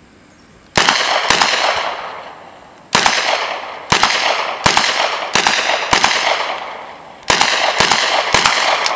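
Uzi submachine gun firing about ten single shots in three quick strings, each shot a sharp crack with a short echoing tail.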